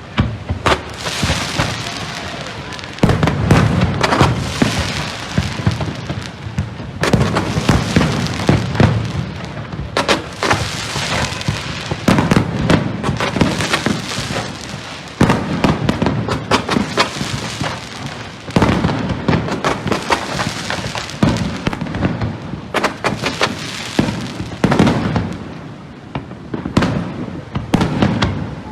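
A fireworks display: a continuous barrage of shell bursts and crackle, with a heavy boom every few seconds.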